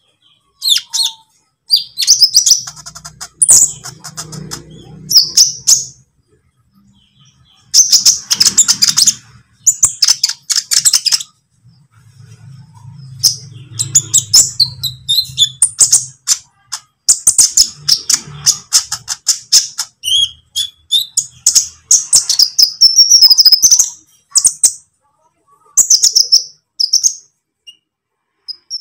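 Olive-backed sunbird singing: rapid high-pitched chirps and trills in quick bursts, broken by short pauses.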